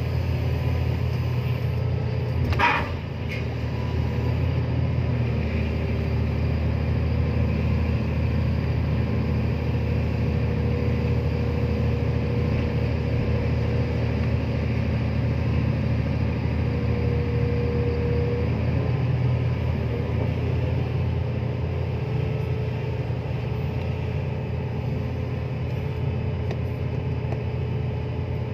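Komatsu excavator mounted on a cargo ship running with a steady low rumble from its engine and hydraulics as it swings and works a clamshell grab. There is a sharp knock about three seconds in, and a steady whine holds for several seconds in the middle.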